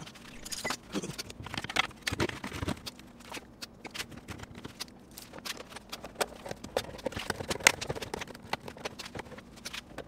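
Irregular plastic clicks and knocks as a Lexus side mirror's glass and plastic backing are handled and fitted back onto the mirror housing, with one sharper click late on.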